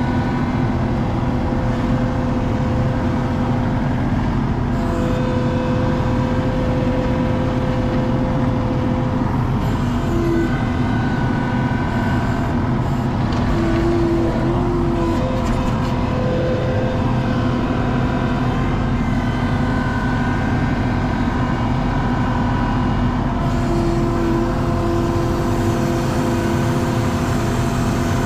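Skid steer engine running steadily, with a higher whine that comes and goes a few times.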